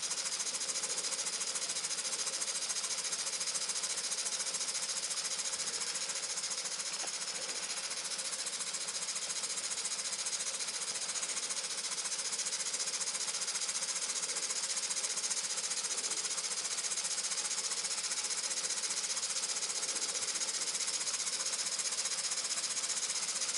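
Muncaster model steam table engine running fast, a rapid mechanical chatter over a steady hiss, steadily picking up speed as the boiler pressure recovers towards 60 psi.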